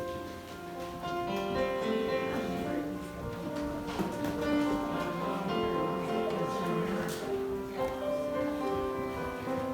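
Instrumental church postlude music with long held notes that change every second or so.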